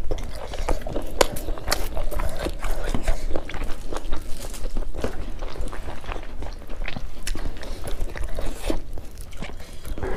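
Chewing and lip-smacking of people eating beef curry and rice by hand: a dense run of sharp mouth clicks.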